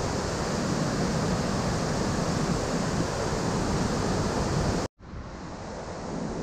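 A large mountain waterfall in heavy flow after days of rain: a loud, steady rushing of falling water. It cuts off abruptly about five seconds in and is replaced by a quieter, steady rushing.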